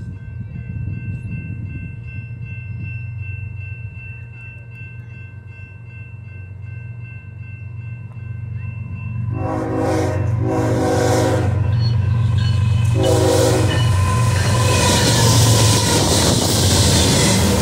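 A diesel freight locomotive approaches with its engine rumbling, then sounds its air horn three times, about a second each, with a longer pause before the third. After that the locomotive passes close by, and its engine and wheel noise grows loud.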